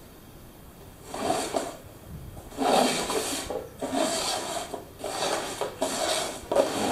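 Upturned cups being slid and shuffled across a wooden floor: about six scraping, rubbing swishes, starting about a second in.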